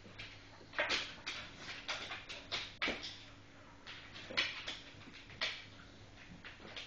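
Staffordshire bull terriers tussling: a string of short, irregular scuffling sounds.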